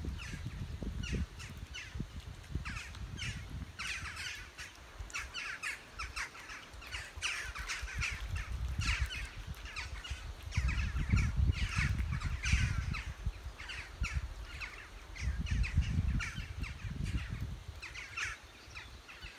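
Many birds calling at once: short, crow-like calls, several a second and overlapping throughout. Bursts of low rumble run underneath, loudest around the middle.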